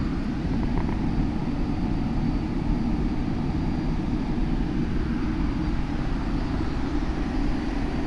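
Steady rushing of a waterfall, an even noise that holds constant with no strikes or pauses.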